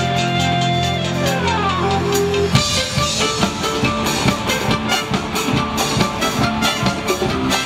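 Live pop-rock band with electric guitar, bass guitar and drum kit playing. Held notes with a falling glide give way, about two and a half seconds in, to the drums and full band coming in with a steady driving beat.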